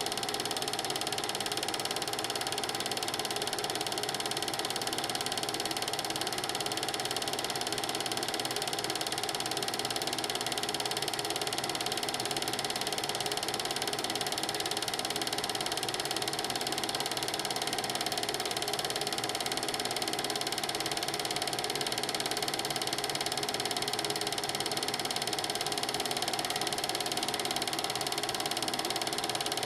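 Film projector running: a steady mechanical clatter from the projector's film transport, with no speech or music over it.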